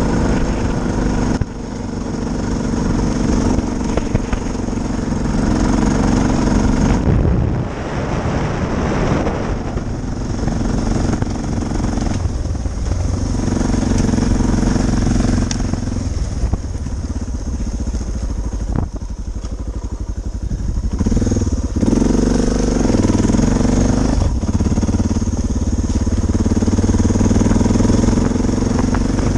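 Suzuki DR650's single-cylinder four-stroke engine running as the motorcycle is ridden, its pitch rising and falling several times with throttle and gear changes.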